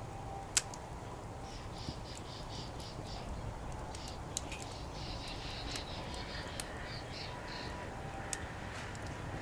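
Wood fire in a fire pit crackling, with a few sharp pops spread through. A bird calls in two runs of quick repeated high notes, over a steady low rumble of distant traffic.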